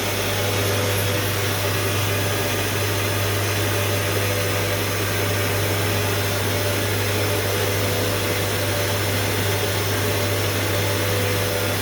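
CNC machine running steadily: a constant low hum with a few steady tones and an even hiss over it.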